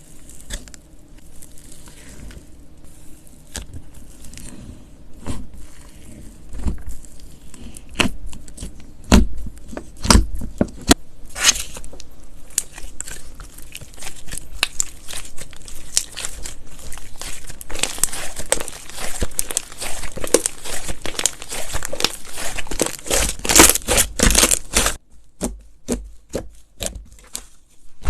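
Slime being squeezed and pressed by hand, making crackling and crinkling sounds with many sharp pops. The crackling turns dense and steady about two-thirds of the way in, then stops shortly before the end.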